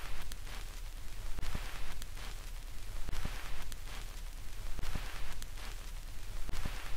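Static-like hiss that swells and fades irregularly, with a few faint clicks.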